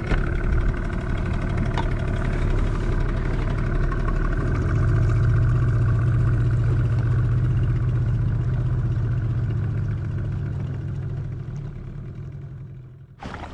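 An engine running steadily with a low hum. It grows louder about a third of the way in, then fades out near the end.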